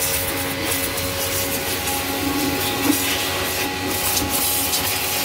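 Pressure washer running steadily, its water jet spraying against the underside of a vehicle chassis: a continuous hiss of spray over a steady motor hum.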